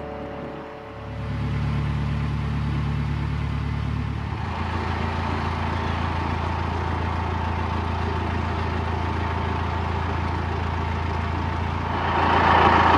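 A narrowboat's diesel engine running steadily at low revs, a low even hum. The hum shifts about four seconds in and gets louder near the end.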